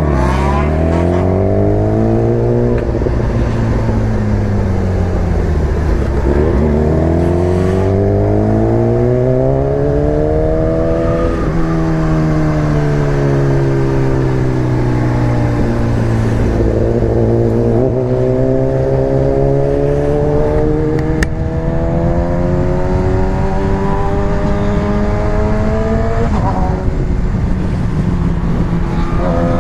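Sport motorcycle engine heard from on board while riding, its pitch climbing under acceleration and dropping sharply at gear changes or on easing off, several times over, with steady wind rush.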